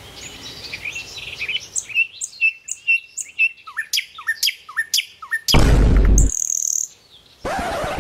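Birds chirping in a quick run of short, repeated high chirps and dipping whistles. About five and a half seconds in, a loud rush of noise lasting under a second cuts in, and a shorter one comes near the end.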